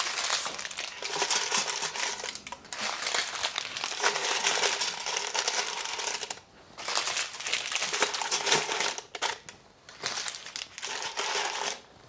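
Parchment-paper packets of chicken crinkling and rustling as they are handled and laid into an Instant Pot's stainless inner pot. The rustle comes in several stretches, broken by short pauses.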